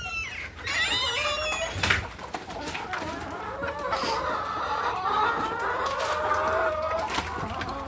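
A flock of chickens clucking and calling together, many voices overlapping, with a few knocks among them.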